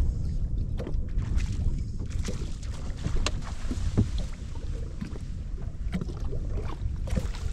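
Wind rumbling on the microphone and choppy water lapping against a bass boat's hull, with scattered light knocks and clicks.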